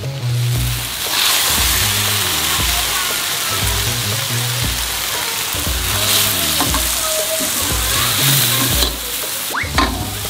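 Thin rice noodles, bean sprouts and long beans sizzling in a hot wok as they are stir-fried with a metal spatula; the sizzle gets louder about a second in, with a few clinks of the spatula near the end. Background music plays under it.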